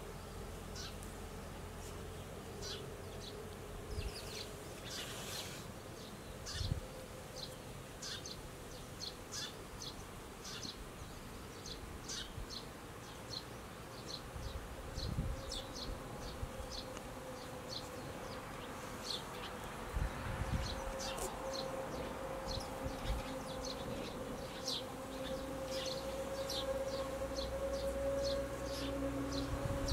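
Insects buzzing steadily in the open air, a droning tone that grows a little stronger in the second half, with short high ticks scattered throughout and a few soft low thumps.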